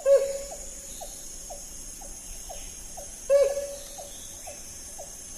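Wild animal calls over a steady high hiss: two loud short pitched calls that dip at the end, about three seconds apart, with faint short chirps repeating about twice a second between them.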